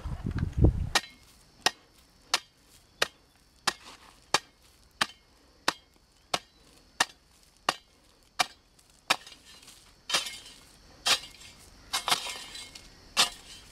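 A metal hoe chops into hard, dry soil in steady, sharp strokes, about one and a half a second. After about nine seconds it changes to fewer, heavier strokes that scrape and dig loosened earth. It opens with about a second of low sloshing from wading in shallow pond water.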